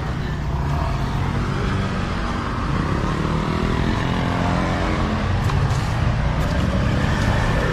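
Motor scooters passing on the road: a steady engine hum that grows gradually louder.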